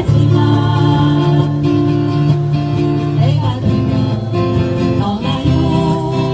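Background music: acoustic guitars strumming with a band backing, playing an instrumental introduction.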